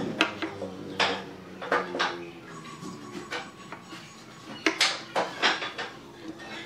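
Steel ruler and metal square knocking and scraping against pine boards: a string of sharp clicks and taps, the loudest about five seconds in.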